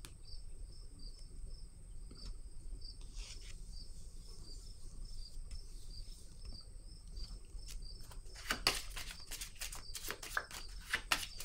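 A cricket chirping steadily, about three high chirps a second. From about eight seconds in, tarot cards are shuffled in a quick run of papery clicks.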